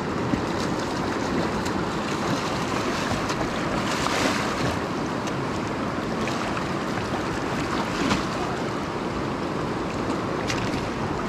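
Steady rush of a shallow river running over stones, with a few brief splashes as a hooked rainbow trout thrashes at the surface and is netted.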